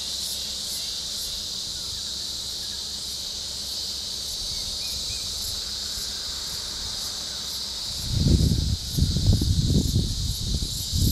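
Insects droning steadily, a high hiss that pulses a few times a second. From about eight seconds in, loud irregular low rumbling bursts take over.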